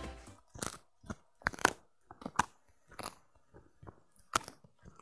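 A small white dog chewing a hard, dry dog treat close to the microphone: sharp, irregular crunches, roughly two a second.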